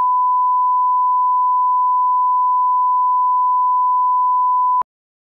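1 kHz reference tone of the kind that runs with colour bars for setting audio levels: a single steady pure beep held for almost five seconds, then cut off suddenly near the end.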